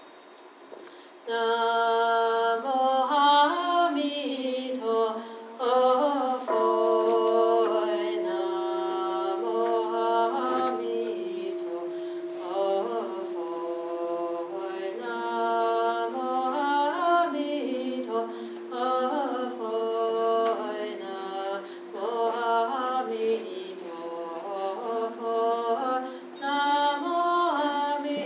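Buddhist chanting sung to a slow melody, starting about a second in, its long notes sliding between pitches, with a steady held tone underneath from about six seconds in.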